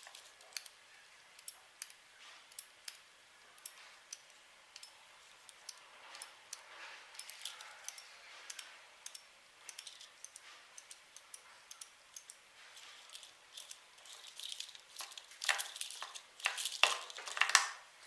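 Metal push-button switches being handled: sharp, irregular metallic clicks and clinks, a few a second, growing denser and louder near the end.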